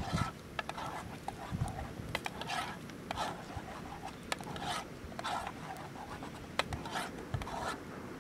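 Small wood campfire crackling with sharp irregular pops, over short rasping rustles repeating every second or so as sticks in the fire are handled.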